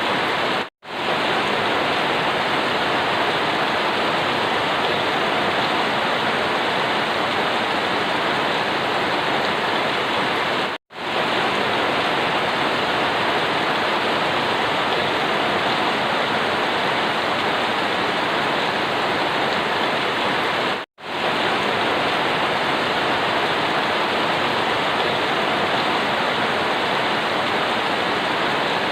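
Steady rain, an even hiss. It drops out to silence for a moment and fades back in three times, about ten seconds apart.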